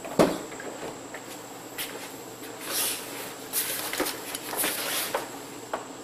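The rear passenger door latch of an SUV clicks open sharply as the handle is pulled. It is followed by rustling and shuffling, with a few small knocks, as a bag is lifted out of the back seat.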